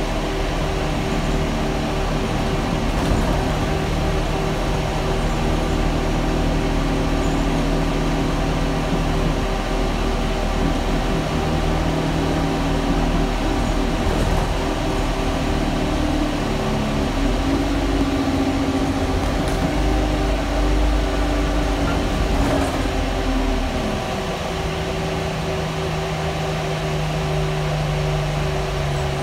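Inside a moving single-deck bus, a loud fan drones steadily over the engine and road noise. The engine note shifts pitch several times as the bus pulls away and changes speed. It settles lower and a little quieter about three-quarters of the way through.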